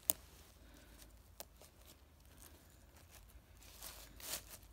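Faint handling noises while picking a boletus mushroom: a sharp click just after the start, a lighter click a second later, then rustling and crinkling near the end.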